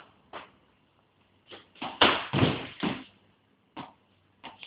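Knocks and thuds of a makeshift indoor cricket game as a ball is bowled and played: a couple of sharp clicks, then a cluster of louder thumps about two to three seconds in, then two more light knocks near the end.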